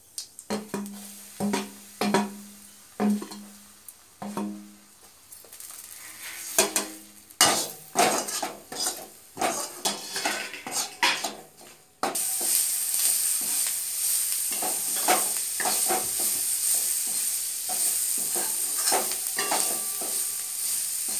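Masala frying in oil in a metal kadhai, with a metal ladle knocking and scraping against the pan. About twelve seconds in, a steady sizzle sets in and runs under the stirring.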